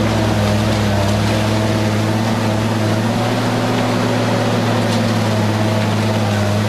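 Industrial car shredder running with a steady deep hum and constant grinding noise as it pulls a car body down into its hopper.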